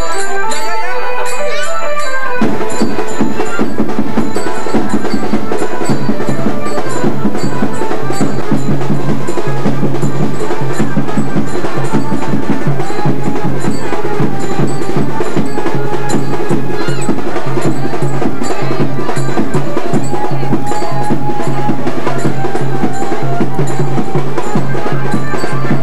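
Loud music with a dense, rhythmic percussion beat and bell-like ringing. A fuller, deeper part with a steady low note comes in about two seconds in.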